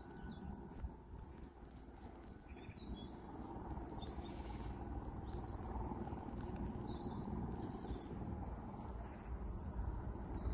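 Birds chirping in short scattered calls over a steady low outdoor rumble, which grows louder with a rising hiss about eight seconds in.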